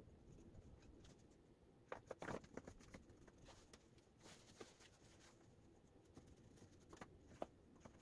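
Near silence with faint handling noise from a ruler and pencil on a fabric jacket laid on a wooden table: a few light taps and rubs, clustered about two seconds in, with scattered soft ticks after.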